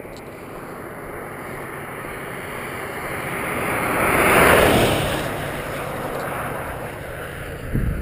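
A car passing at highway speed: engine and tyre noise on the road rise to a peak about halfway through, then fade as it goes by.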